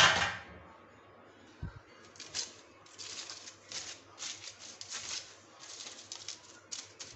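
Aluminium foil around a baked loaf crinkling in irregular bursts as hands pull and fold it, with a short loud rustle right at the start.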